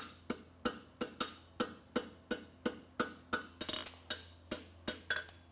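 Farrier's hammer striking a red-hot steel horseshoe on the anvil, a steady rhythm of about three blows a second, each with a short ring. The blows are forging out and turning the heel of a Swiss/French hind shoe.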